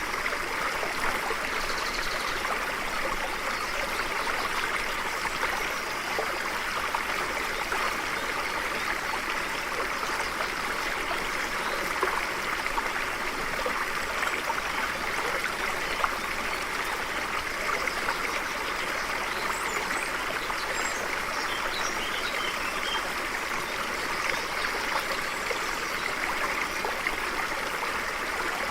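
Stream running over rocks: a steady, even babble of flowing water.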